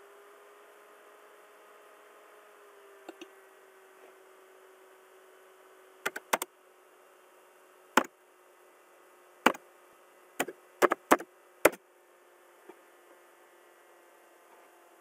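Sharp clicks of a computer mouse and keyboard, about a dozen in all: a quick pair about six seconds in, then single clicks and a fast run of four a few seconds later. A faint steady hum runs underneath.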